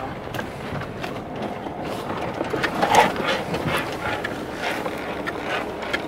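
Car driving on an uneven road, heard from inside the cabin: steady road noise with scattered knocks and rattles, a cluster of them about three seconds in.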